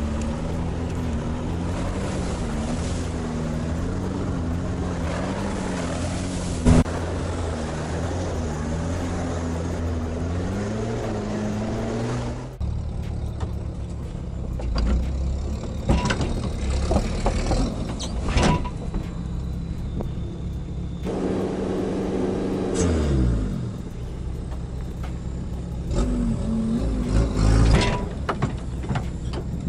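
Sherp all-terrain vehicle's diesel engine running under load as it drives, its pitch wavering slightly. The sound changes abruptly about twelve seconds in, with scattered knocks and clatter. Later the engine revs fall away, then rise again near the end.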